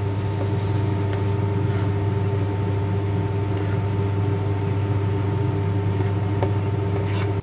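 Steady loud electrical hum with a low buzz from a running kitchen appliance. A few light clicks of a spatula against the wok as the stir-fry is pushed out into a bowl.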